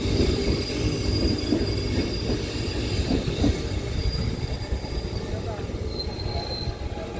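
Taiwan Railway EMU3000 electric multiple unit standing at the platform with its doors closed, its onboard equipment giving a low rumble and a thin high whine that holds for about four seconds and comes back briefly near the end.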